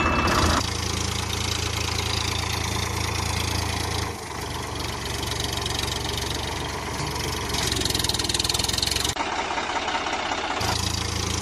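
Tractor engine idling sound laid over toy-tractor footage. Its tone changes abruptly about half a second in, around four seconds in, and twice more near the end.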